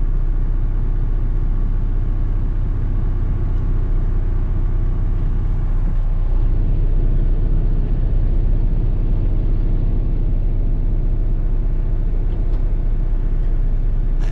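Heavy truck's diesel engine running steadily, heard from inside the cab.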